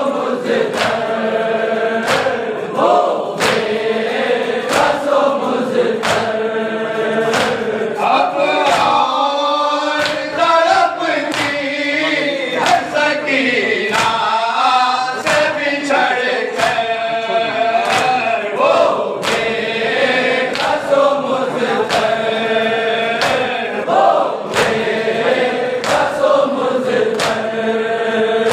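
A crowd of men chanting a noha, a Shia lament, together with a lead reciter. A steady beat of hands striking chests (matam) keeps time under the singing.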